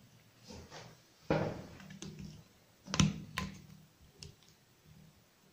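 A tripod's plastic phone-holder clamp knocks and clicks as a phone is fitted into it by hand. There are a few separate sharp clicks, the loudest just over a second in and about three seconds in.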